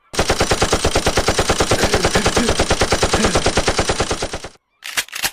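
Machine-gun fire sound effect: a rapid, even burst of shots lasting about four seconds, then a short gap and a couple of single shots near the end.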